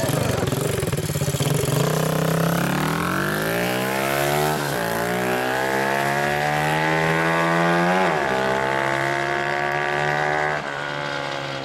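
Custom Honda Monkey's single-cylinder four-stroke engine with an aftermarket exhaust pulling away from a low idle, revving up through the gears with two upshifts, about four and eight seconds in, each marked by a sudden drop in pitch. The throttle eases off near the end and the sound gets quieter as the bike rides away.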